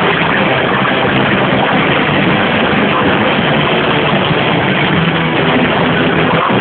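A live rock band with electric guitar playing loud through a PA, recorded on an overloaded camera microphone so it comes through as a heavily distorted, constant wash in which the instruments are hard to pick out. It breaks off briefly near the end.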